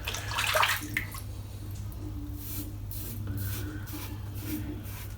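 Stainless-steel safety razor scraping through lathered stubble on a scalp in a series of short strokes, with a louder wet rush about half a second in.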